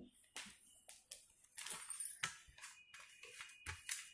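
Faint, irregular clinks and scrapes of stainless steel kitchenware being handled: a ladle in a steel bowl of jaggery dough and a steel plate being moved and rubbed.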